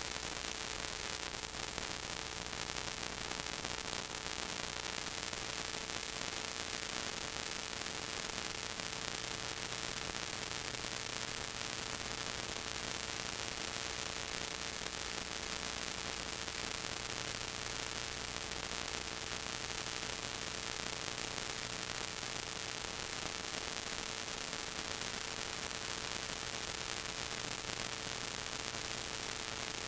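Steady hiss with a faint, steady hum underneath and no other sound: the empty soundtrack of a silent 8mm home-movie film transferred to video.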